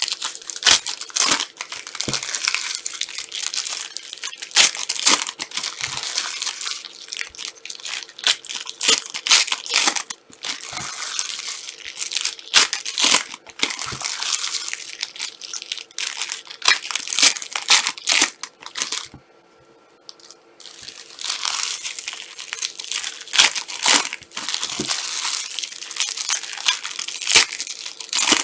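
Trading card pack wrappers being torn open and crinkled by hand. The crackling and tearing runs in a dense stream of sharp crinkles, with a brief lull about two-thirds of the way through.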